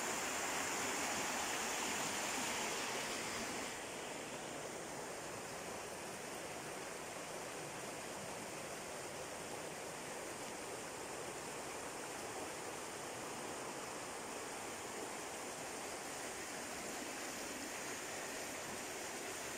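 Steady rushing of fast-flowing river water over riffles, turning a little quieter and duller about four seconds in.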